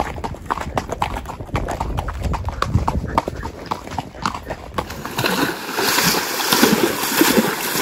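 Horse hooves clip-clopping on a dirt track, many quick irregular clicks. About five seconds in, it changes to a horse wading through a river, water splashing and rushing around its legs.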